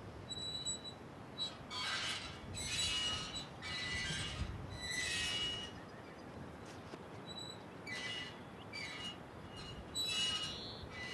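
Bright metallic chimes shimmering in irregular swells every second or two, with a few high ringing tones held between them.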